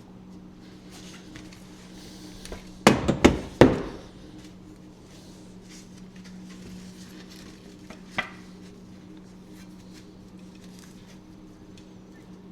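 Four quick, loud, sharp knocks in under a second, about three seconds in, then a single fainter knock some five seconds later, over a steady low hum.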